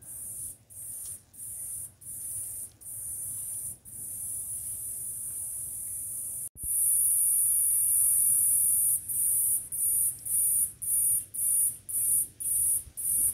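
Insects buzzing in a high-pitched, pulsing trill of about two pulses a second. About halfway through it turns into one unbroken buzz for a couple of seconds, then goes back to pulsing.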